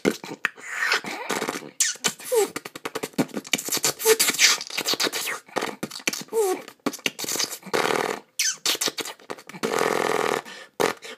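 A person making war-film battle sound effects with the mouth: rapid spitting, crackling bursts, two short falling whistles, and a longer hissing rush near the end.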